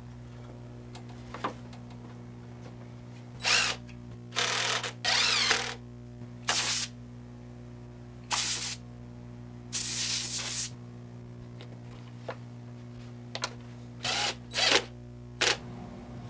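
About nine short hissing bursts, some brief and some lasting nearly a second, over a steady low hum.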